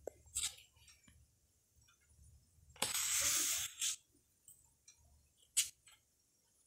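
Sketchbook pages being turned by hand: paper rustling, with a longer, louder rustle about three seconds in and short flicks near the start and near the end.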